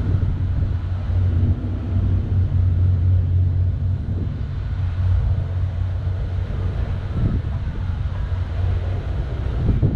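A steady low engine drone over a constant wash of outdoor noise.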